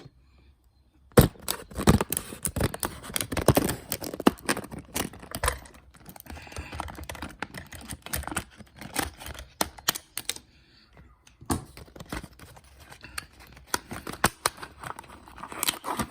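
A padlock's retail packaging being opened by hand: an irregular run of crackles, clicks and tearing, with a sharp snap about a second in.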